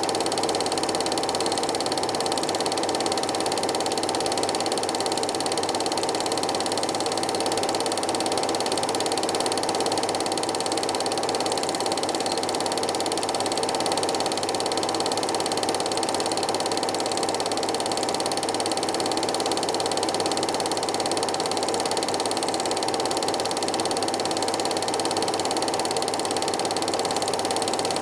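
Cine film projector running: a steady mechanical whirr with a fast, even clatter from the film advance that never changes pace.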